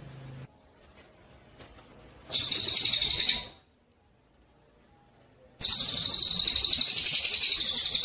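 A songbird giving two loud, very fast buzzing trills of high notes. The first is about a second long and the second about three seconds. A faint thin high whistle is heard between them.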